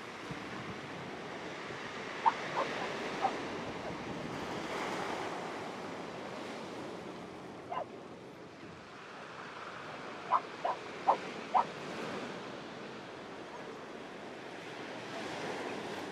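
Sea surf washing over rocks, with wind on the microphone. The loudest sounds are short, sharp calls in quick runs: three about two seconds in, a single one near the middle, and four more about ten seconds in.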